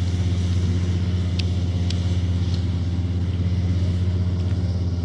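Combine harvester's diesel engine running steadily at a constant deep hum, with a few sharp clicks from the machinery.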